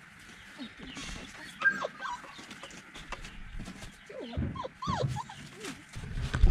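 American Collie puppies whimpering and yipping in short, sliding whines, with a loud thump near the end.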